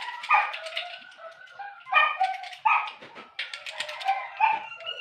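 A dog yelping and whining, several short, high-pitched calls spread across a few seconds.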